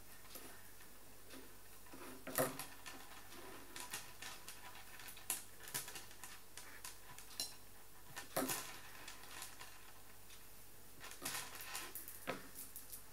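Faint, irregular clicking and rustling of beaded bracelets being handled while a ribbon is tied into a bow around them, the beads knocking against each other and the table. The sharpest clicks come about two and a half seconds in and again about eight seconds in, with a small cluster near the end.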